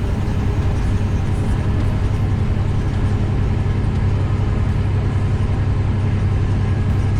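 Diesel engine of a 2001 Western Star float tractor running at a steady pace while driving, heard from the cab as a steady low drone.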